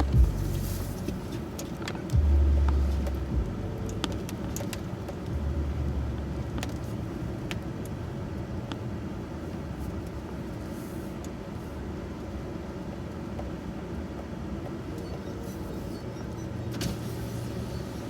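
A pickup truck's engine running at low speed, heard from inside the cab: a steady low rumble that swells a few times, with scattered light clicks.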